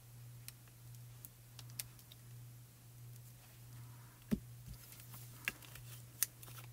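Light clicks and taps of craft tools and plastic pieces handled on a work table, with a soft knock about four seconds in as a clear acrylic case is set down. Sharp clicks near the end as a small plastic sequin jar is opened, over a steady low hum.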